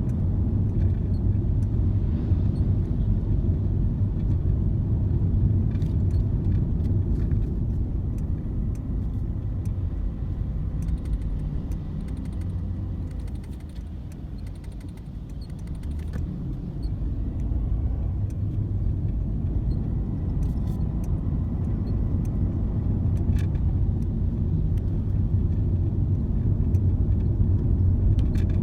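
Steady low rumble of a moving car, easing off for a few seconds about halfway through before building again.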